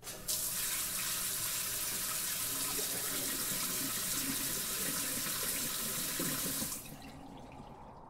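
Steady rush of running water, starting abruptly just after the start and cutting off about seven seconds in.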